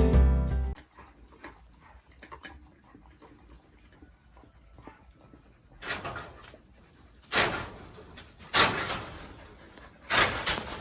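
Background music ending about a second in, then a faint steady high insect tone, then a goat bleating loudly four times in rough, noisy calls about a second and a half apart.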